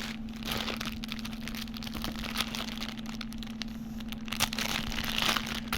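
Plastic packaging crinkling and rustling as it is handled, a steady run of small crackles and rustles.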